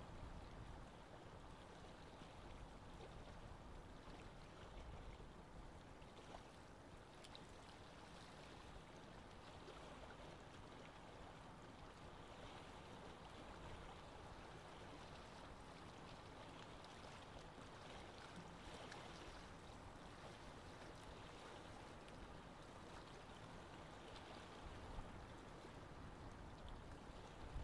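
Faint, steady bubbling and trickling of water in a small aquarium, driven by the bubble stream rising through the tank. There is a brief soft knock near the end.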